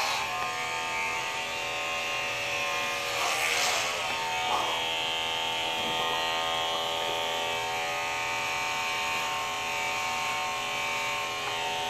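Corded electric hair clippers running with a steady buzz as they cut long hair off the head. The buzz briefly grows louder and rougher about three seconds in.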